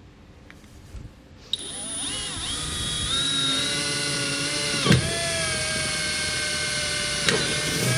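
Milwaukee cordless drill spinning a small bit, drilling a pilot hole through a truck's steel bed floor. The motor whine starts about a second and a half in, rises to speed and holds steady, with a brief dip in pitch about halfway through.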